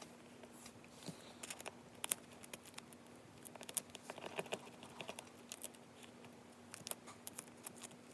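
Metal tweezers picking and scratching at the sticky side of silver duct tape on a stone countertop: scattered light clicks and scratches, with a faint steady hum underneath.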